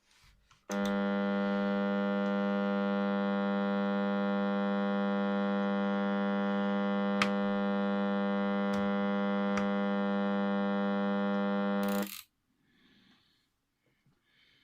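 Sony flip-clock radio's alarm buzzer sounding through its speaker: a steady, harsh electronic buzz that starts suddenly about a second in, holds one pitch for about eleven seconds, and cuts off abruptly, with a few faint clicks over it.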